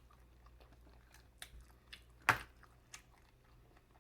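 Close-miked chewing with small wet mouth clicks scattered throughout, and one louder click a little past halfway.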